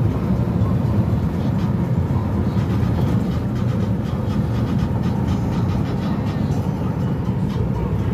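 Steady low rumble of a car driving on an asphalt road, engine and tyre noise heard from inside the cabin.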